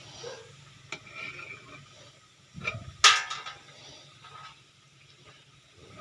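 Kitchen utensils clattering: a couple of light clicks, then one loud sharp metallic clank with a short ring about halfway through, over a faint low hum.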